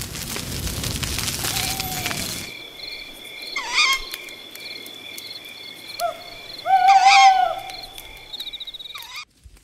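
Campfire crackling for the first two and a half seconds, then a night-time nature soundscape: insects chirping steadily in high pulses, with two louder animal calls about four and seven seconds in. It all cuts off suddenly just before the end.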